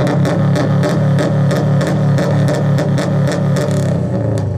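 Subaru Forester's turbocharged flat-four boxer engine held at high revs through an aftermarket exhaust: a loud, steady drone at one pitch with a rapid run of sharp crackles over it, easing off at the very end.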